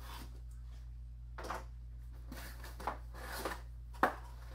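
Small cardboard box being opened by hand: short rustles and scrapes of cardboard and tape as the flaps are worked open, with a sharp tap about four seconds in, over a steady low hum.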